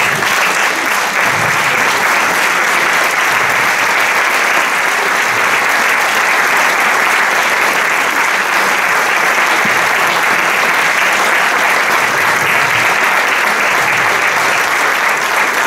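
A large seated audience applauding steadily and loudly, a dense, even clatter of many hands.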